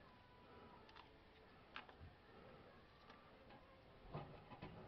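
Near silence, with a few faint isolated ticks, then soft low handling bumps near the end as fingers work epoxy onto the rusted spot on the gas tank.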